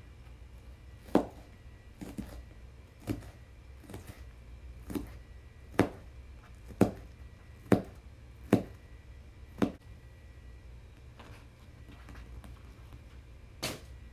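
Kitchen knife chopping a yellow onion: about ten separate sharp chops roughly one a second, a pause of a few seconds, then one more chop near the end.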